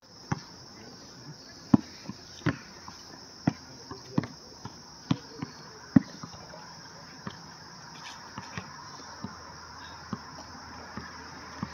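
A basketball dribbled on an outdoor asphalt court: a string of sharp single bounces about once a second, loudest in the first six seconds and fainter after that.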